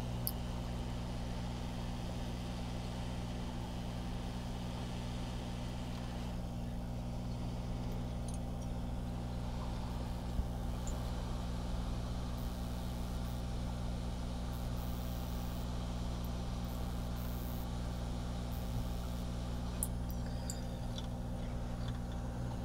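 Hot air rework station blowing on a circuit board: a steady low hum with a hiss of air, and a single click at the start.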